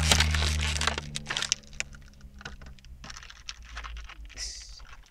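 Stiff plastic packaging clicking and crackling as it is worked open by hand, in scattered sharp clicks. A low hum fades out over the first couple of seconds.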